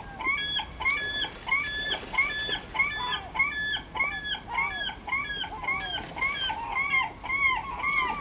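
A bird calling over and over, about two calls a second, each call rising and then falling in pitch.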